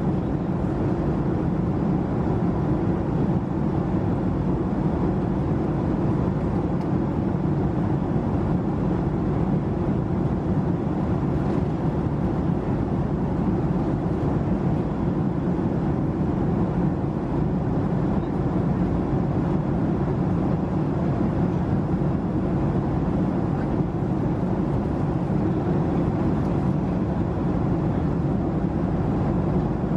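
Steady cabin noise of a Boeing 767-300ER airliner in cruise, heard from an economy seat: an even, deep rushing drone with no breaks or changes.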